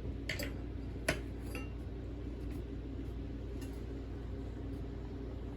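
Steady low room hum with a few light clicks and taps, the sharpest about a second in.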